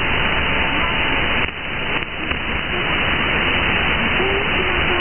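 Radio static from an SDR receiver tuned to 1669 kHz upper sideband: a steady hiss with a faint whistle tone running through it, where the weak ship weather broadcast is buried in the noise. The hiss dips briefly twice, about one and a half and two seconds in.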